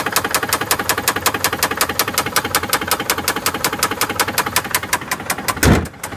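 Subaru Baja's 2.5-litre flat-four idling with a loud, rapid, even knock, about eight knocks a second: the engine has failed internally, the sound of a blown motor. A brief loud low rumble comes near the end.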